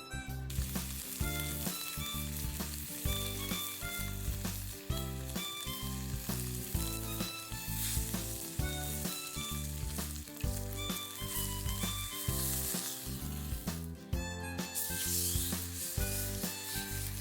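Food sizzling as it fries, a dense hiss that drops out briefly near the end, over background music with a steady beat.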